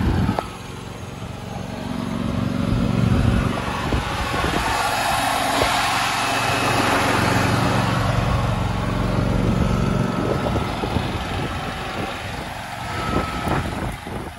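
Kubota T1760 riding tractor's liquid-cooled 17 hp engine running steadily, with a few short clicks near the end.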